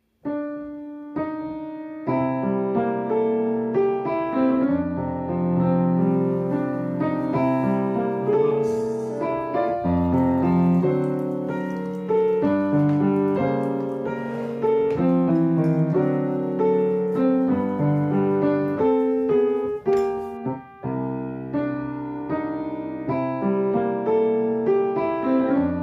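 Solo piano music, a melody over chords played note by note, with a brief pause about two-thirds of the way through.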